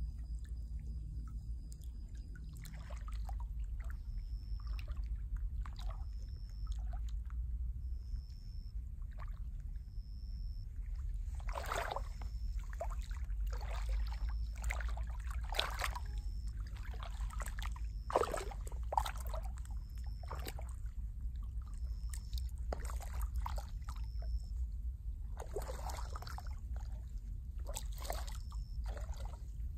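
Footsteps sloshing and squelching through shallow muddy water, an irregular run of wet steps that gets heavier after about ten seconds and again near the end, over a steady low rumble.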